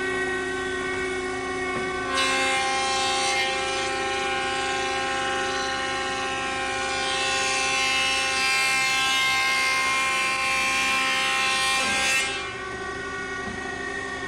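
Electric hand power planer running at full speed with a steady high whine. About two seconds in, a louder rushing hiss of the cutter block taking wood joins it. The hiss stops about two seconds before the end, leaving the motor whining freely.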